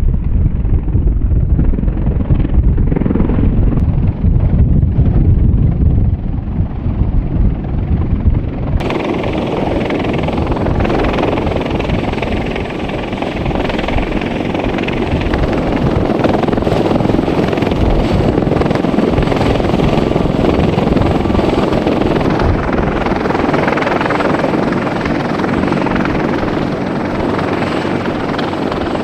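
Sikorsky CH-53E Super Stallion heavy-lift helicopter running, a dense continuous rotor and turbine noise. It is dull and bass-heavy at first, then turns abruptly brighter and fuller about nine seconds in.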